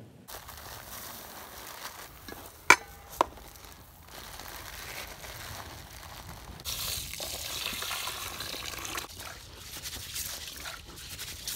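A metal spoon clinks twice against a steel bowl, then dry rice pours into an aluminium bowl with a steady hiss that gets louder about seven seconds in.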